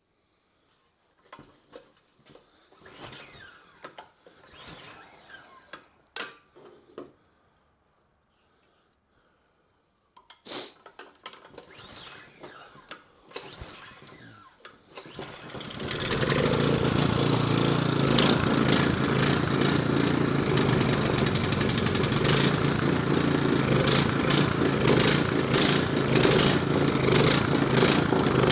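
LCT 179cc single-cylinder snowblower engine catching about halfway through and then running steadily. Before it starts, faint clicks and rustles of hands working on the engine.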